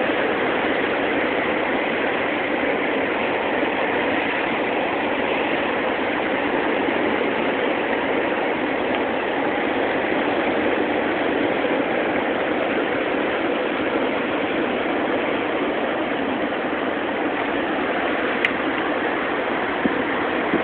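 Steady rush of flowing water, an even unbroken noise with no rise and fall.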